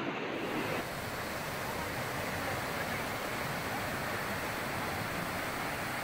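Rushing river water in flood: a steady, even rush whose tone shifts about a second in.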